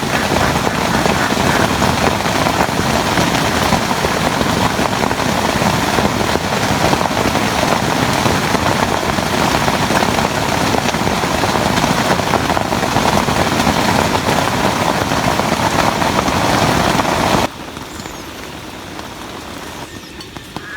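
Heavy rain falling steadily, then dropping suddenly to much softer rain about three seconds before the end.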